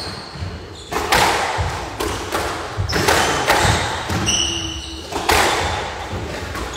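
Squash rally: the ball is struck and thuds off the court walls every second or so, each hit echoing in the hall, with players' footsteps thumping on the wooden floor and a brief shoe squeak about four seconds in.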